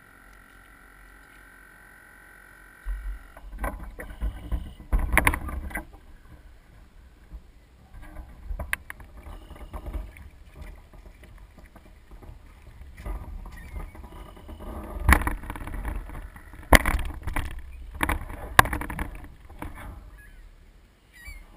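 A 1-meter RC Soling model sailboat's hull being lifted out of the water and carried: irregular knocks and bumps on the deck and hull, heard close on the boat-mounted camera over a low rumble, starting about three seconds in.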